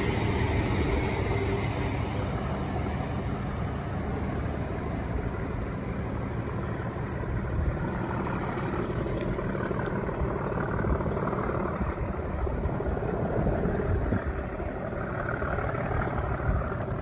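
A diesel-hauled train of unpowered Class 365 electric units rumbling steadily along the rails as it moves away, slowing for a signal check, with the low drone of the Class 37 diesel locomotive at its head.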